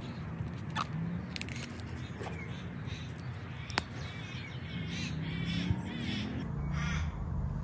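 Light clicks and handling noise from stretchy grafting tape being wound around a grafted avocado stem and pulled free, with birds calling in the background. A sharp click a little under four seconds in is the loudest sound.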